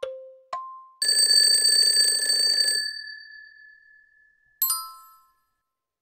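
Countdown-timer sound effect ticking in alternating low and high tones, about two ticks a second. About a second in, an alarm bell rings for about two seconds as the timer runs out. Near the end a single bright chime rings and fades.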